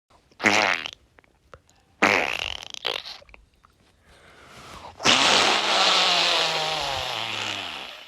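Three farts: a short one about half a second in, another about two seconds in, then a long drawn-out one of about three seconds starting around five seconds in, its pitch sinking as it goes.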